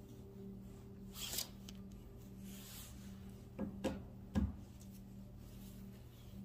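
Fabric of a nylon puffer jacket rustling and rubbing against the phone's microphone in four brief scrapes, three of them close together in the middle, over a steady low room hum.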